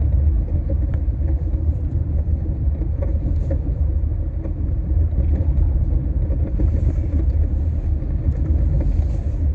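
Steady low rumble of a car being driven on a snowy road, heard from inside the cabin.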